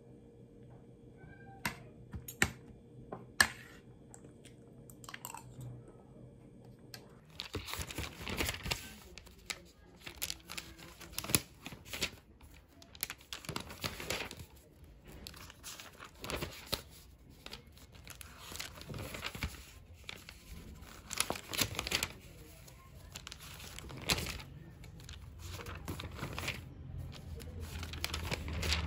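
A few sharp clinks of metal cutlery against a plate, then notebook pages rustling and being flipped by hand, again and again.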